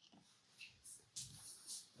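Near silence with a few faint, soft rustles and light taps, getting a little louder toward the end.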